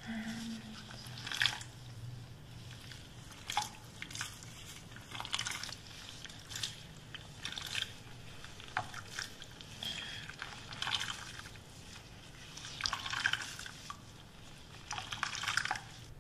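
Wet squelching and squishing of hands working conditioner through wet hair, in short irregular bursts roughly once a second.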